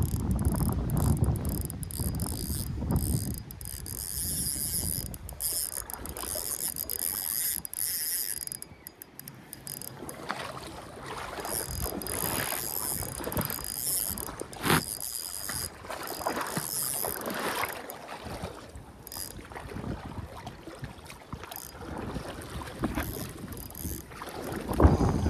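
Spinning reel being cranked on a retrieve, its gears ticking rapidly with a thin whine in two long stretches. Low rumbles from wind or handling on the microphone come at the start and near the end.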